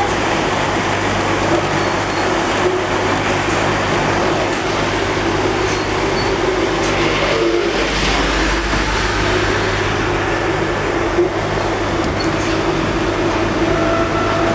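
Bottling-line machinery running: a conveyor and its motors make a steady mechanical drone with a constant low hum. A deeper rumble comes in about halfway through.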